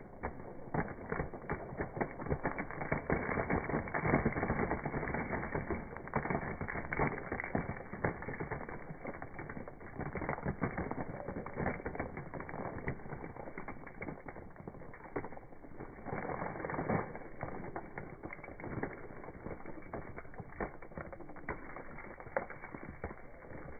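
Bare feet trampling and crushing dry cereal rings and snacks scattered over plastic snack wrappers: a dense, continuous run of crunching and crackling snaps.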